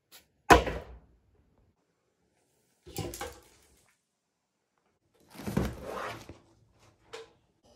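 Gear being handled in a small room, heard as short knocks and clatters at four separate moments with silence between. The loudest is a sharp knock about half a second in. A motorcycle helmet being lifted off a shelf makes a longer knocking, scraping clatter a little past halfway through.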